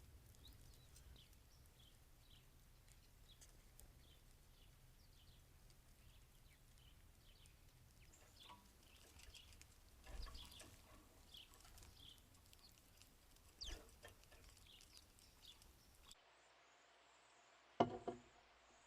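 Faint, frequent short high-pitched chirps of small backyard birds, thicker toward the middle of the stretch. Near the end a single short, much louder sharp sound breaks in.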